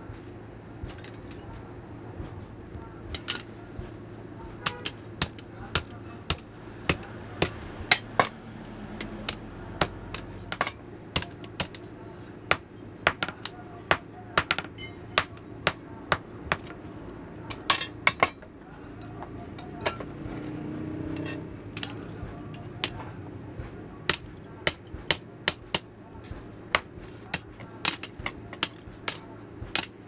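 Blacksmith's hand hammer forging an iron ring on an anvil: irregular sharp blows, each with a high metallic ring. The blows start a few seconds in and pause briefly around the twenty-second mark.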